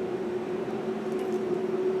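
A steady hum at a constant pitch, with a few faint clicks about a second in.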